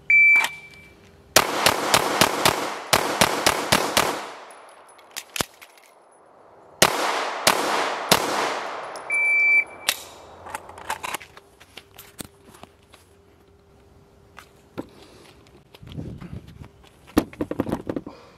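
An electronic shot timer beeps, and a red-dot handgun fires two fast strings of shots. After a pause of about three seconds for a slide-lock reload, it fires three more. A second short timer beep follows about nine seconds in, then only faint clicks.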